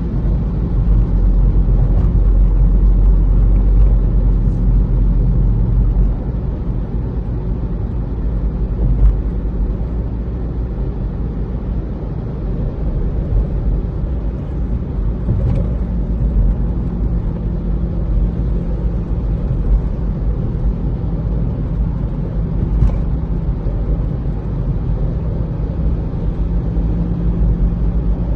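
Cabin noise of a Nissan car driving through a road tunnel: a steady low rumble of engine and tyres, a little louder for the first six seconds or so.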